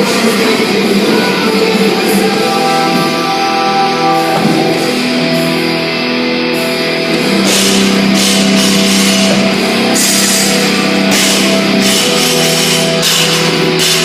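Rock music with distorted electric guitar; a steady drum beat with cymbals comes in about halfway through.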